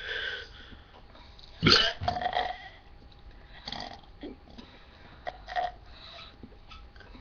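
A person belching deliberately. The biggest burp comes about a second and a half in and lasts nearly a second, with a shorter one at the start and a few shorter, quieter sounds later.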